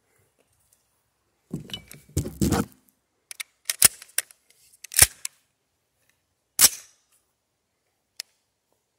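AR-15-style rifle with a 16-inch barrel and muzzle brake fired three times, single shots about a second and a half apart. A second or so of muffled low noise comes before the first shot.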